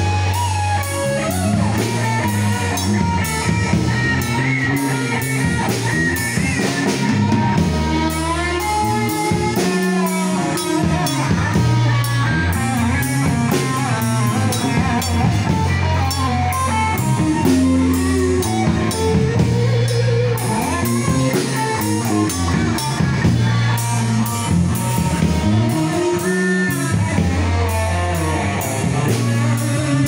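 Live rock band playing: electric guitar, electric bass and drum kit, loud and steady.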